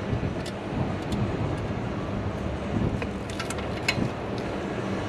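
Sharp metallic clicks and taps of a wrench working on the EGR valve mounting bolts, which stay tight and do not loosen, over a steady low hum.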